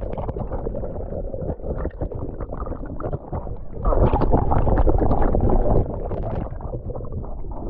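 Deep, muffled churning of water heard underwater, stirred up by a crowd of kelah (Malaysian mahseer) thrashing for feed pellets. It swells louder for about two seconds in the middle.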